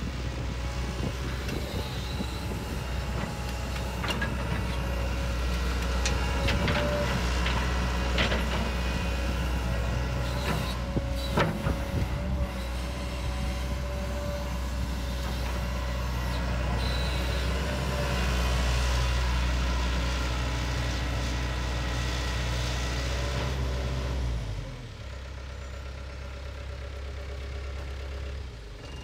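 John Deere 135C excavator's diesel engine running steadily under load with a whine, with several sharp knocks in the first half. About 24 seconds in the low drone drops away and the engine settles to a quieter run.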